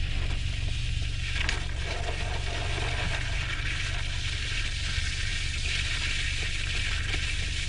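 Outdoor wind buffeting the microphone: a steady low rumble under an even hiss.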